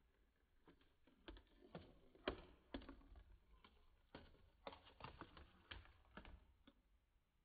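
Faint, irregular clicks and soft knocks, a dozen or so spread unevenly and the sharpest about two seconds in: a marble rattling against the cardboard walls and ramps of a homemade cardboard marble run.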